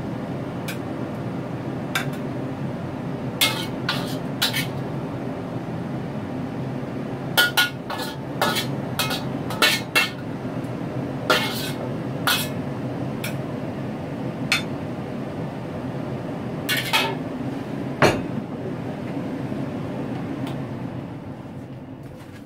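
Metal utensil scraping and clanking in a wok and against a ceramic plate, in irregular clinks and knocks as stir-fried food is served out. A steady low hum runs underneath.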